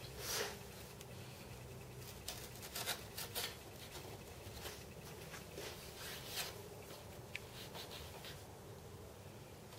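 Faint, scattered scratching and rubbing of tape being pressed down and worked along the edge of a moulded glass-fibre model wing with a small hand tool, with one sharp tick near the end.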